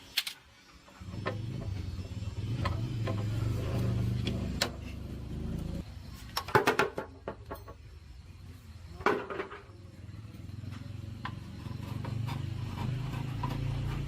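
Scattered metallic clinks and knocks of parts and tools being handled, with a louder cluster of clanks in the middle and another sharp knock a couple of seconds later, over a low rumble that fades midway and comes back near the end.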